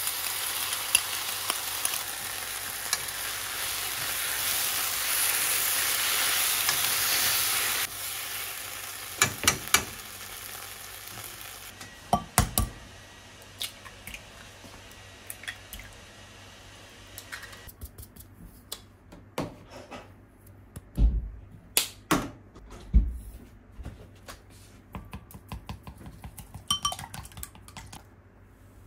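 Pork and sliced onion sizzling in a frying pan as sauce is poured on and stirred in, the sizzle loud at first and dying down about eight seconds in. Then a run of clinks and taps from eggs being cracked into a glass bowl and beaten, with a few heavier knocks midway.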